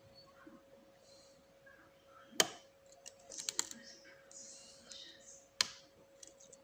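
Lock picking in an Abus 7240 brass padlock: faint metal scraping and small ticks of the pick working the pins, with two sharp clicks about two and a half and five and a half seconds in and a quick run of clicks between them.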